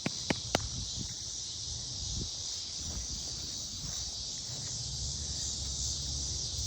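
A steady, even chorus of insects, high-pitched and unbroken, over a low wind-like rumble, with two light clicks within the first second.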